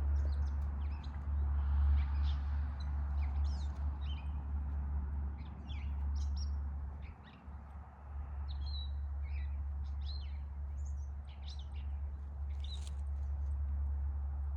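Birds chirping in short, scattered calls, over a steady low rumble.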